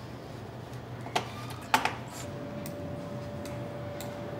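Two sharp clicks about half a second apart, then a steady electronic beep held for over three seconds, from a medical X-ray machine and its control console during an ankle X-ray.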